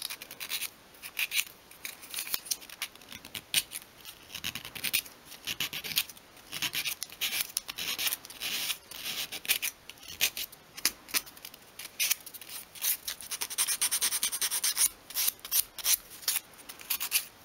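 Small piece of sandpaper rubbed by hand over a small block of obeche softwood, rounding off its corners: quick, irregular scratchy strokes, several a second.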